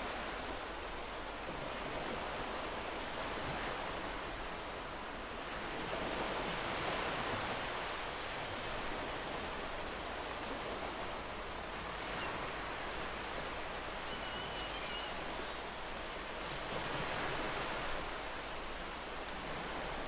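Ocean waves breaking and washing up a sandy beach: a steady hiss of surf that swells a little now and then.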